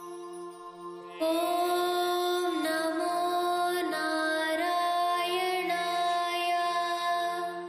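A devotional chant sung by one voice in a melodic, gliding line over a steady drone. The voice comes in about a second in and stops near the end, leaving only the drone.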